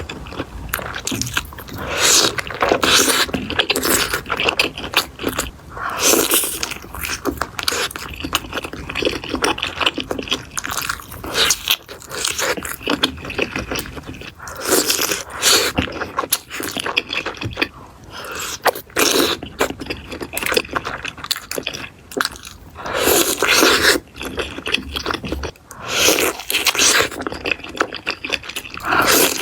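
Close-miked eating sounds: irregular crunching and chewing, with louder clusters of crunches every few seconds.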